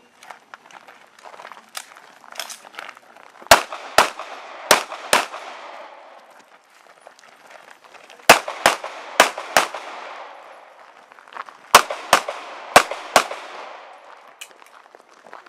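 Pistol shots fired in three quick strings of four, about half a second apart, with pauses of a couple of seconds between strings, each shot ringing out briefly. Fainter cracks come in between.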